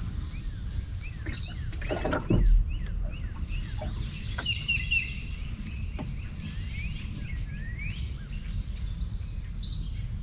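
Wild birds chirping and calling. A loud, buzzy trill swells and ends with a quick downward sweep, once near the start and again near the end. A soft knock comes about two seconds in.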